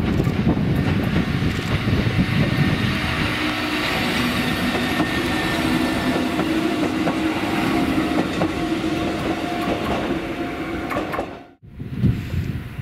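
Kotoden 1080 series electric train (ex-Keikyu 1000 series) running on the rails: a steady rumble with wheel clacks over the track and a low droning tone in the middle. The sound cuts out suddenly near the end, then comes back.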